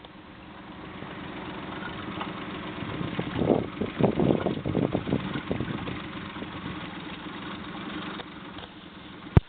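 An engine running, loudest in the middle with uneven pulsing, then easing off; a single sharp click just before the end.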